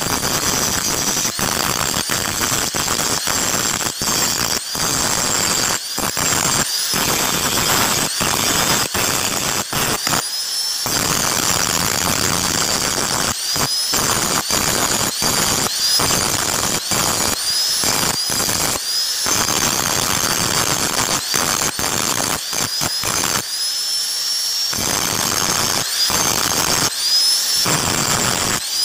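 Electric angle grinder with an abrasive cut-off disc cutting a steel knife blank. It gives a continuous loud grinding noise over a high whine, and the whine repeatedly dips and climbs back as the disc bites into the steel and eases off.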